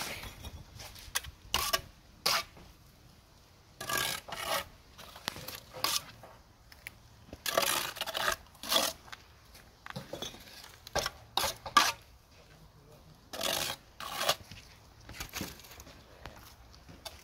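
Bricklaying work: a trowel scraping mortar and bricks being knocked into place, heard as irregular short scrapes and knocks with pauses between them.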